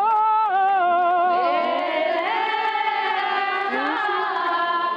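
Women singing prayers aloud together. One high voice holds wavering notes at first, then more voices fill in as the melody moves on.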